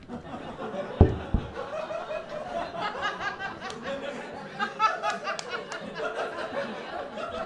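Audience laughing and chattering in a hall, with two low thumps about a second in.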